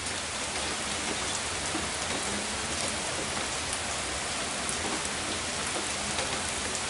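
Steady rain falling on the lawn, pavement and trees, an even hiss with occasional sharp drop ticks.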